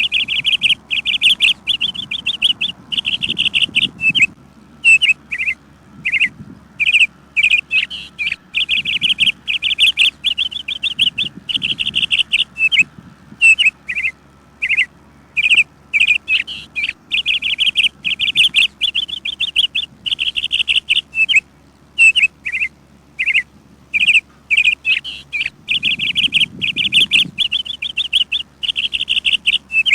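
Songbird chirping: fast runs of short, high chirps lasting a second or two each, broken by brief pauses and single chirps, going on throughout.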